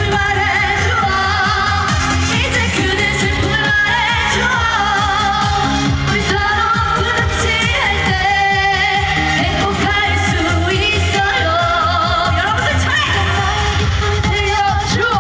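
Live trot song: a woman singing with a wavering vibrato over a loud backing track.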